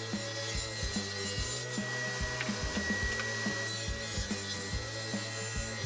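Table saw running and cutting plywood, a steady high whine with cutting noise, over background music with a steady beat.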